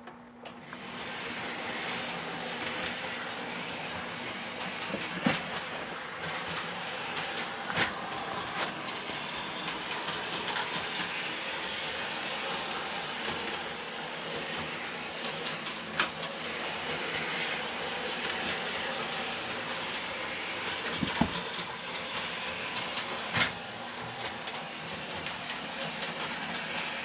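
O gauge model trolleys running on the track: a steady whir of motors and wheels that starts about half a second in, with a few sharp clicks scattered through it.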